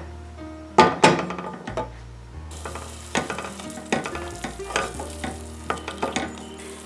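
Wooden spoon stirring and scraping a soffritto of vegetables and tomato passata around a stainless steel pot, in separate strokes, while the mixture sizzles gently in the oil.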